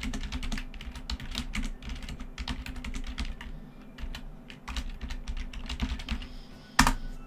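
Typing on a computer keyboard: a fast, irregular run of key clicks, with one louder key strike near the end.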